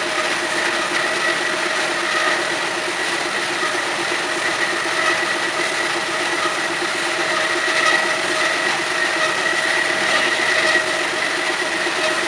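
CORMAK S-280R semi-automatic metal-cutting band saw running, a steady machine hum with a high whine over it.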